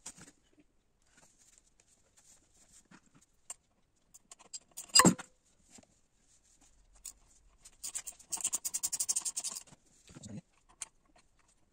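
Hand work with a three-jaw gear puller drawing a gear part out of an e-bike hub motor: scattered small metal clicks, one loud sharp crack about five seconds in, then a quick, even run of clicks lasting about a second and a half, and a dull knock near the end.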